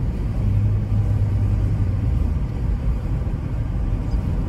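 Steady low rumble of a moving car, road and engine noise heard from inside the cabin while driving.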